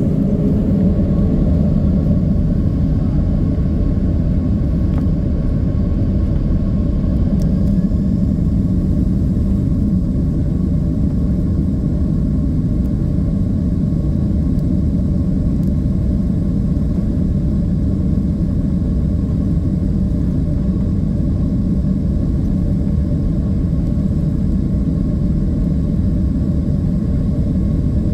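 Steady loud rumble of a Boeing 767-300's engines and rushing air, heard inside the passenger cabin, with a faint steady whine above it.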